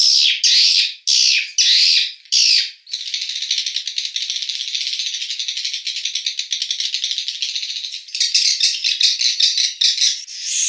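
Recording of swiftlets calling: a run of separate buzzy chirps, then about five seconds of a dense, rapid rattling trill, then choppy chirps again. These are the roosting calls swiftlets make on returning at dusk, edited into a lure sound for swiftlet houses.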